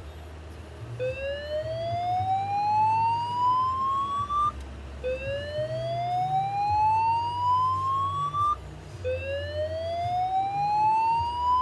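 Fire alarm speaker sounding the slow whoop evacuation tone: a tone that rises steadily in pitch over about three and a half seconds, then breaks off and starts again low. It sounds three times, the last sweep still rising at the end. It is the alarm signal for a reported fire, ahead of the voice evacuation message.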